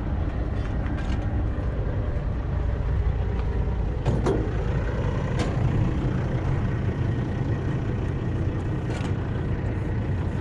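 Steady low rumble of a truck engine running, with three short clicks.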